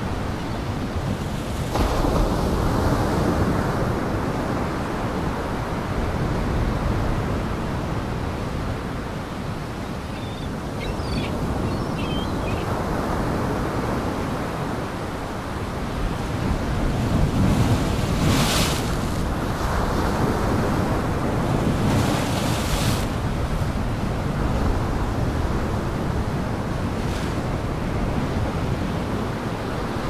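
Heavy storm surf crashing and wind rushing over the microphone. The surf swells into louder crashes near the start, around the middle and again a few seconds later.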